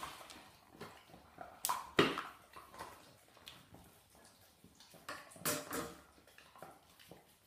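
A greyhound gnawing at a large raw marrow bone on a tiled floor: irregular wet scrapes and clicks of teeth on bone, with the bone knocking on the tiles, loudest about two seconds in and again around five and a half seconds.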